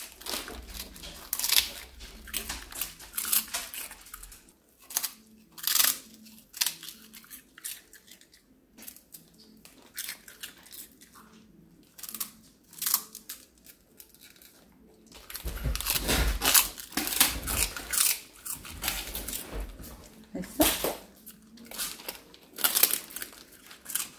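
Shiba Inu biting and chewing a hard dried chew treat held in a hand, with irregular sharp crunches and tearing sounds, plus a plastic bag crinkling.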